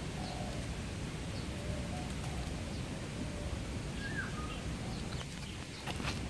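Outdoor ambience: a steady low rumble with faint, brief bird chirps scattered through it, and a short cluster of sharp clicks near the end.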